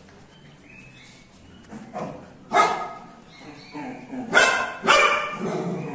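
Dog barking: a handful of short, loud barks, the loudest about two and a half seconds in and two more close together near the end.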